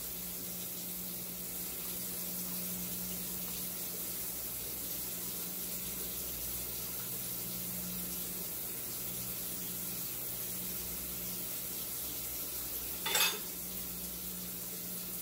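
Steady background hiss with a low hum, and near the end one short clink of a metal spoon being set down on the wooden tray table.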